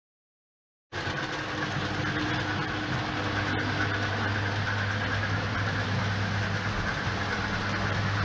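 Model Southern Pacific GS-4 steam locomotive and its train running steadily along model railroad track: a constant mechanical running noise with a low hum, starting abruptly about a second in.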